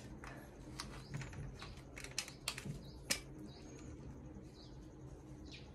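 Small birds chirping faintly, with a cluster of light clicks and taps about two to three seconds in, the sharpest near the three-second mark.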